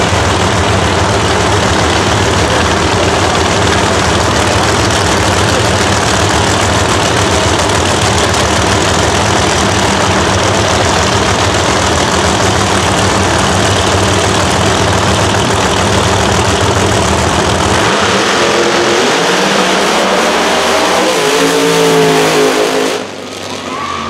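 Two no-prep drag cars' engines running loud and steady at the starting line. About 18 seconds in they launch, and the engine note climbs in pitch as the cars pull away down the track. The sound drops off suddenly near the end.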